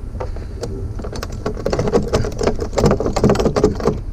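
Rapid clattering clicks and knocks of a brass fitting being wrenched and rattled loose from a fiberglass bathtub, thickest from about a second in to near the end, over a steady low rumble.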